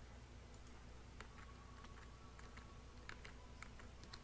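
Faint computer keyboard keystrokes: a dozen or so short, scattered key clicks as a line of code is edited away.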